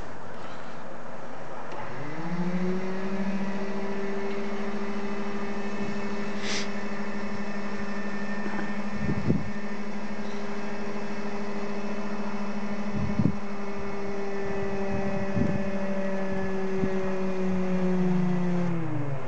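Steady motor whine at the Il-14T's left engine: it spins up about two seconds in, holds one pitch, and winds down near the end. A few sharp knocks sound midway.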